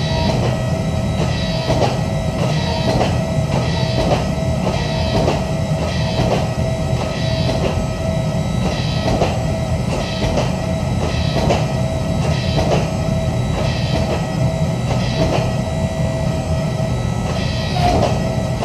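Hydraulic forging press at work pressing a hot Damascus billet. It is a steady, loud low roar with a steady whine over it and regular light ticks a little under two a second.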